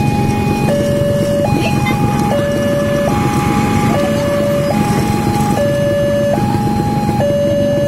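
Electronic level-crossing alarm sounding its two-tone warning, a higher and a lower tone taking turns a little faster than once a second, the signal that the barrier is down for an approaching train. A steady low rumble runs underneath.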